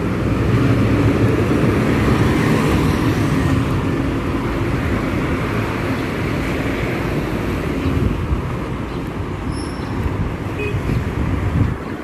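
Street traffic going by, with the low hum of a nearby motor vehicle's engine that eases off about two thirds of the way through.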